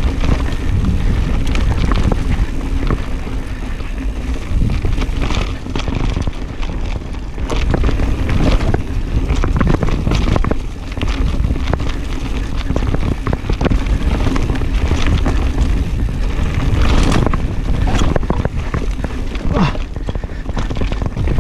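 Mountain bike descending a rough trail at race speed: wind buffeting the microphone over a steady low rumble of tyres on dirt, with frequent knocks and clatters from the bike over bumps.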